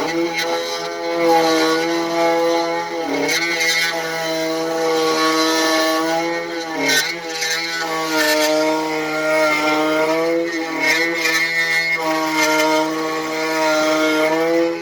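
SEC E9 key cutting machine's cutter spindle running at its highest speed, a steady high whine, milling the dimples into a Mul-t-lock Junior dimple key. The pitch dips briefly three times as the cutter loads up.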